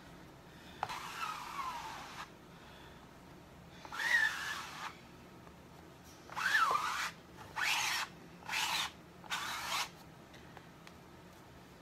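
A 4-inch squeegee scraping chalk paste across a silk-screen transfer in six separate strokes, each a short swish, some with a brief squeak. The first stroke is the longest.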